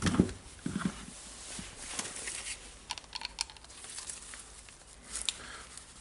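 Faint handling sounds of glove rustling and scattered light metallic clicks as slip-joint pliers grip the jammed anvil shaft of an impact wrench's hammer case and try to turn it.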